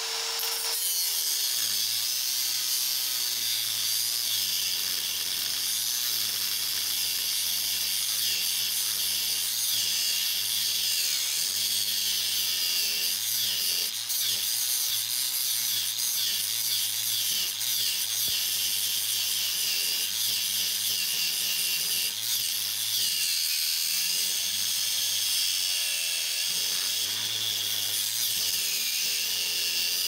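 Angle grinder with a thin cut-off wheel cutting through a Schlage B60 deadbolt latch bolt held in a vise: a steady, high grinding hiss of the wheel in the metal over the motor's low hum.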